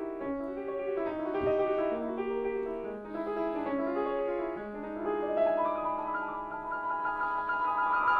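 Solo piano playing slow, held chords in a classical style, the notes changing every half second or so; in the last few seconds the playing moves higher and grows louder.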